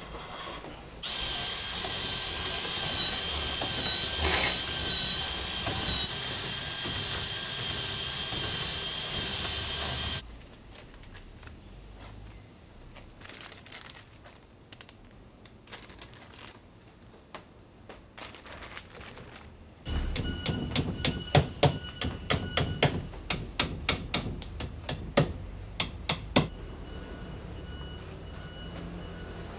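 Workshop tool sounds: a small electric motor runs steadily for about nine seconds, then stops. After a quieter stretch of scattered small clicks from handling, a quick run of sharp knocks comes over a steady motor hum.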